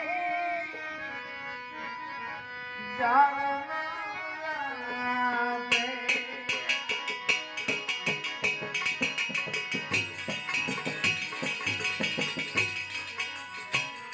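Devotional bhajan music: held melodic notes with a few sliding pitches at first. Then, about six seconds in, hand drums and a bright metallic percussion come in with a fast steady beat under the melody.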